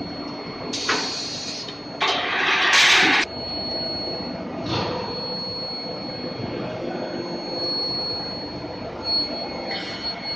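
Induction quenching and tempering line for torsion bars running: a steady machine hum under a constant high whine. Loud bursts of hissing come about one second and two seconds in, the second the loudest, and a short one near the middle.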